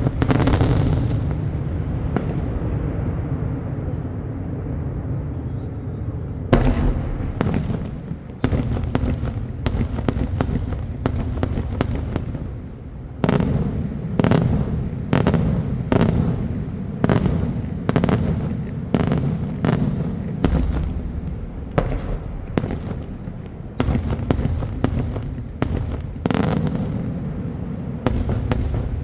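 Daytime fireworks display. A big blast at the start trails off into a long low rumble, then a fast, steady run of sharp bangs follows, about one to two a second, each echoing.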